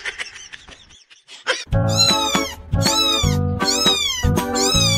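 A young ginger kitten meowing: a run of about five short, high, falling meows in quick succession, beginning about two seconds in, over background music. Before that come a few brief noisy sounds.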